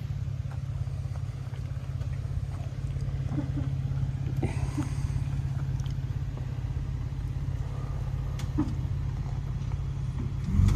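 Off-road vehicle engine running steadily at low revs, a constant low hum with a few light clicks and knocks over it, swelling louder right at the end.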